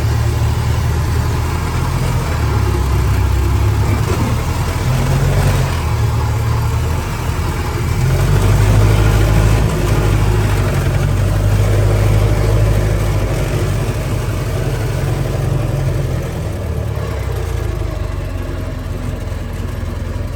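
1923 Model T Ford's four-cylinder engine running under load as the car creeps along in low gear. It gets louder about eight seconds in, then eases off over the last few seconds.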